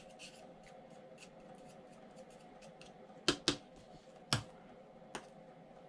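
Metal palette knife clicking and scraping against a plastic palette while picking up black acrylic paint: light ticks, then four sharp clicks in the second half, the first two close together.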